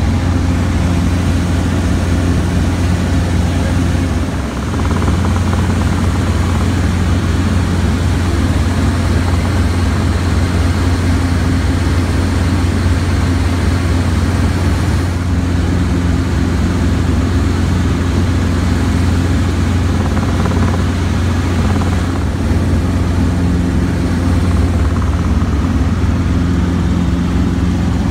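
Robinson R22 helicopter in cruise flight, heard from inside the cabin: the steady low drone of its four-cylinder Lycoming piston engine and rotor, with a brief dip about four and a half seconds in.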